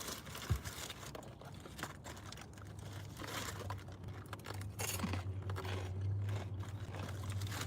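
Crinkling and crackling as fried chicken and its paper wrapping are handled, in irregular small bursts. A low steady hum comes in about two and a half seconds in.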